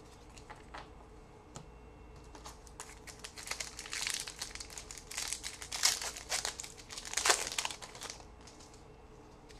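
Trading card pack wrapper crinkling and crackling as it is handled and torn open. It starts about two and a half seconds in and dies away near the end.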